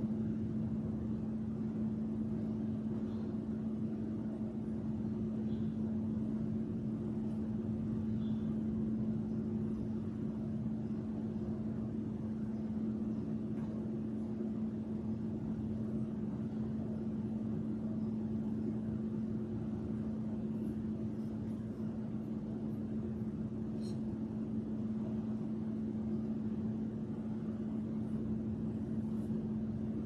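Steady low hum at one constant pitch, with a few faint soft taps.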